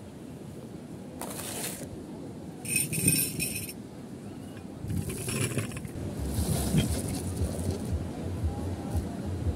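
Cut-glass tea glasses and saucers clinking against each other and the marble tabletop as a tea set is moved about, with a bright ringing clink about three seconds in. A low rumble runs under the second half.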